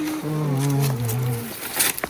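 A man humming a short tune, a few notes stepping down in pitch, followed by a brief rustle near the end.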